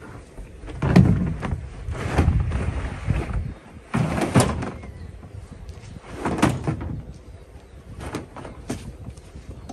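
Cut-open plastic IBC tote bottle being slid and pushed into its steel cage: hollow knocks and thumps as the plastic hits the cage bars, with plastic scraping along the metal. The loudest knock comes about a second in.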